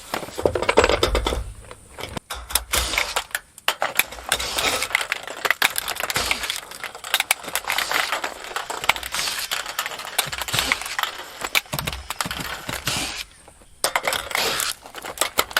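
Ribbed metal roof panels being pried up and pulled off a roof: a stream of metallic clanks, rattles and scrapes, with a brief pause near the end.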